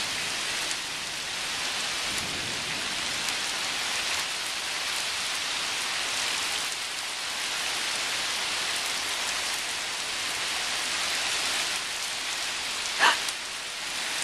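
Heavy rain pouring steadily during a thunderstorm, an even hiss of rain on surfaces. About thirteen seconds in, a brief pitched sound rises above it.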